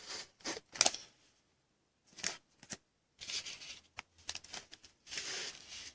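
Trading cards being handled and slid off a stack: faint light clicks and short papery rustling scrapes, in a few scattered bursts.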